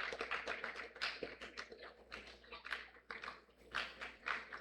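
Faint, irregular clicks and knocks, a few each second, over a low steady hum of room noise.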